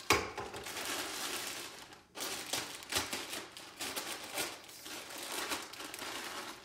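Clear plastic wrapping crinkling and rustling as it is pulled off a long hanger bracket, with a sharp crackle just after the start and a brief lull about two seconds in.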